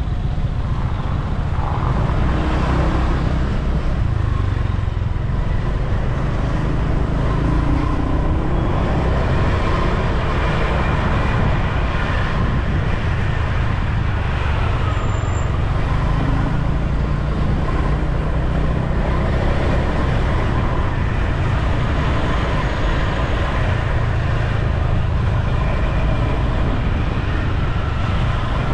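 Street traffic heard while riding along in it: a steady heavy rumble of wind and road noise with engines of the surrounding cars and motorbikes.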